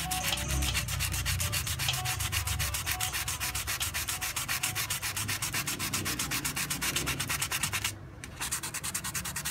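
Fine sandpaper (around 800 grit) rubbed by hand over a metal airsoft pistol slide in fast, even back-and-forth strokes, pausing briefly near the end before going on more lightly. It is light sanding to clear permanent marker off the surface around the engraving.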